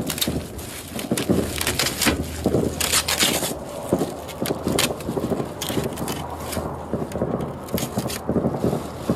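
Brittle, crumpled covering on a wrecked truck front being torn and peeled off by hand, a run of irregular crackling and crunching. A low steady hum runs underneath.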